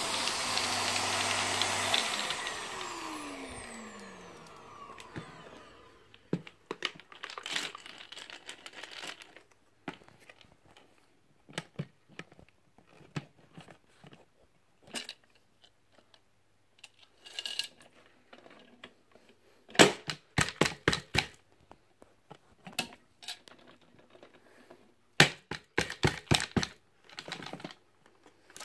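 Vacuum cleaner running on a shag rug, then switched off about two seconds in, its motor whine falling in pitch as it spins down. After that, scattered light clicks and rattles.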